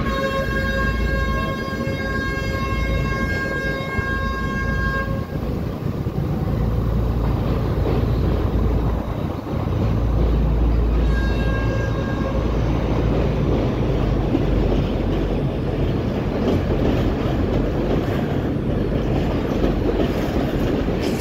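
Sri Lanka Railways S8 diesel multiple unit's horn: one long steady blast of about five seconds, then a short blast about eleven seconds in, over the steady low rumble and clatter of goods wagons rolling slowly along the track as the train propels them in reverse.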